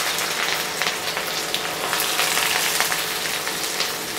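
Chopped onions sizzling and crackling in hot mustard oil in a kadai, a steady frying hiss that slowly eases.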